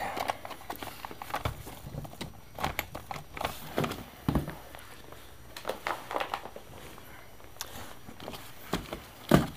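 Handling noise as a coil of black hose is lifted out of a cardboard box and parts are moved about: scattered rustles and light knocks against cardboard and metal, with one louder knock near the end.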